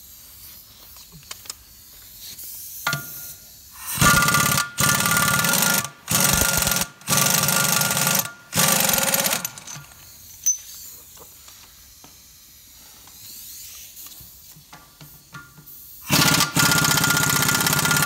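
Pneumatic impact wrench hammering on the lug nuts of a combine's wheel rim, undoing them. It runs in a string of short bursts of about a second each, starting about four seconds in, then again in bursts near the end.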